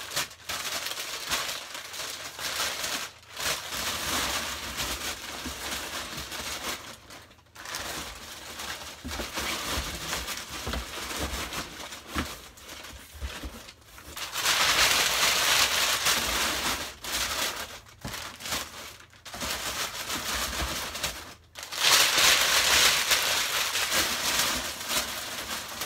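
Packing material crinkling and rustling as it is crumpled and stuffed into a cardboard box around wrapped items as void fill. The rustling runs on in long stretches, louder for a couple of seconds about halfway through and again near the end.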